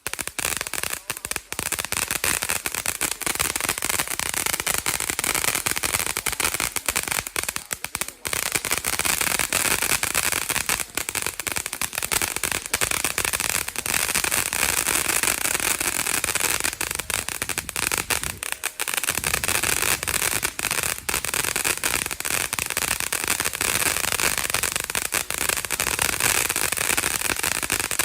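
TNT Wild Side fountain firework crackling hard and without let-up: a dense, steady mass of rapid crackles over a hiss.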